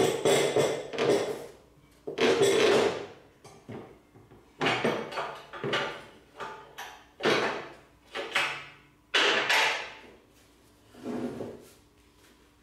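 Hand tool trimming the edge of a cured fiberglass trunk lid: a series of short, harsh cutting strokes, uneven and roughly one a second.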